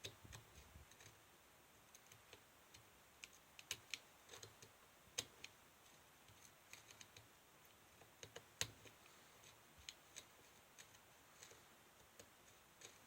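Faint, irregular little clicks and scratches of a knife blade scraping a burnt circuit-board trace back to bare copper so solder will take.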